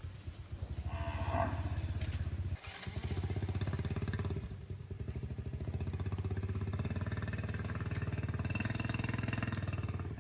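A small engine running steadily, with a brief dip about two and a half seconds in.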